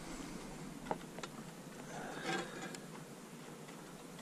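Quiet handling noises as a crappie is laid on a fish-measuring board: a few faint clicks and knocks about a second in, and a soft scuffle a little past two seconds.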